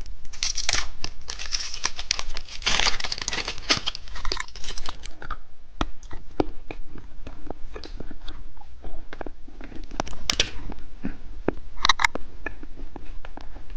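A candy or snack wrapper torn open and crinkled for the first few seconds, then crunching and chewing with scattered sharp clicks.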